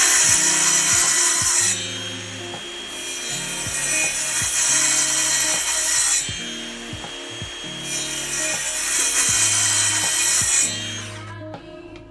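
Saw cutting through a wooden skirting board in three long passes, each a few seconds of steady rasping noise.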